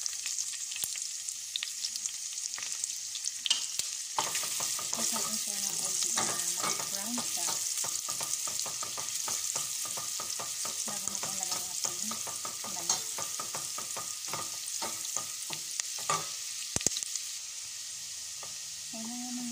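Diced onion sizzling in hot oil in a stainless steel pot as it is sautéed, stirred with a wooden spoon. A steady high sizzle runs throughout, with a dense crackle of pops and spoon scrapes from about four seconds in until near the end, and a few louder clicks.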